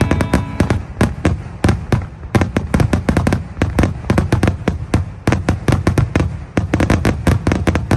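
Starmine fireworks barrage: shells bursting in rapid succession, several sharp booms a second over a continuous low rumble.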